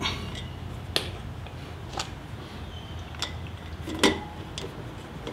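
Spoke torque wrench clicking on the spoke nipples of a chrome wire-spoke motorcycle wheel: short, sharp metallic clicks about once a second, the loudest about four seconds in.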